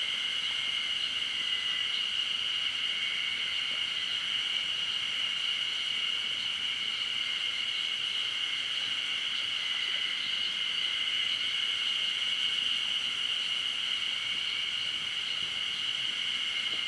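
Steady, high-pitched insect chorus, an unbroken drone that does not rise or fall.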